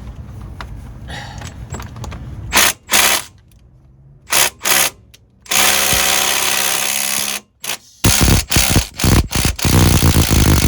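Impact driver hammering at a rusted, seized nut in stop-start bursts: a few short bursts, then a longer run of about a second and a half, then quick repeated bursts near the end, as the mechanic tries to crack it loose.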